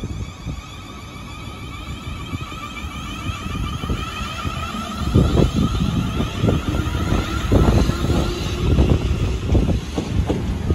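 Electric multiple-unit passenger train passing close on the near track, with an electric whine. From about five seconds in, heavy wheel clatter over the rail joints sets in and grows louder.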